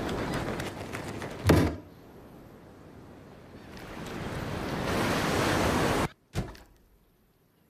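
Animation sound effects: a rushing, surf-like noise that fades, a heavy thump about a second and a half in, then a rush that swells and cuts off suddenly, followed by a second short thump near the end.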